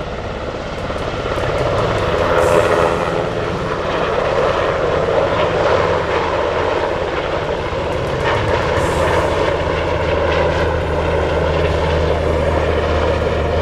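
RCAF CH-148 Cyclone helicopter in flight: steady rotor and turbine engine noise, growing louder about two seconds in and then holding level.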